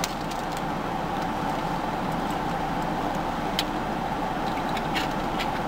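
A steady hum with a constant hiss that starts suddenly and holds level, with a few faint clicks over it.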